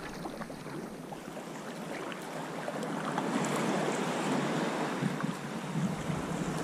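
Sea water washing and splashing: a steady hiss of moving water with small scattered splashes, swelling a little in the middle.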